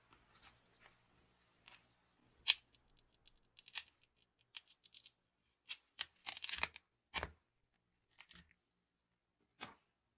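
Clear plastic mold sheets being pried and peeled off a cured epoxy resin casting: a string of sharp cracks and crackles at irregular intervals, thickest around the middle, with a last one near the end.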